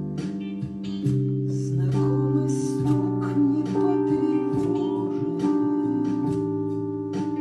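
Instrumental music: plucked guitar notes over held chords, an instrumental passage of a song without vocals.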